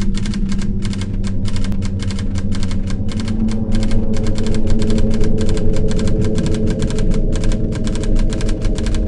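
Typewriter keystroke sound effect: a rapid, even run of key clicks, about five a second, over a low steady musical drone.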